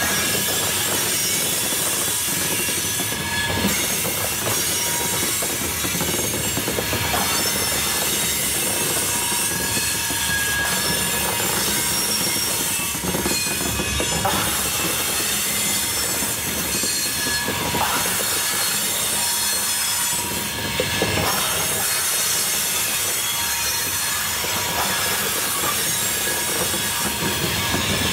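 Freight train of hopper cars rolling past steadily, wheels clicking over the rail joints with a thin, faint wheel squeal.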